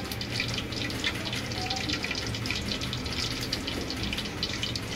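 Hot cooking oil sizzling in a pot on the stove, a steady dense crackle with no pauses.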